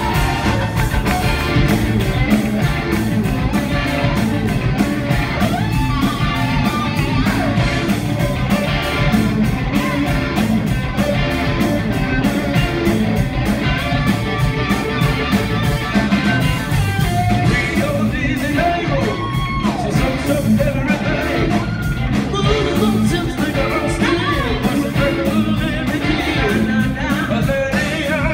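Live band playing: singing over drums, electric bass and electric guitar, with sliding melodic lines.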